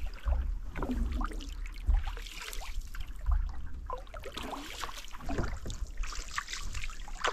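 Canoe paddle strokes in lake water: the blade dipping and pulling with splashes and drips, about one stroke every second and a half.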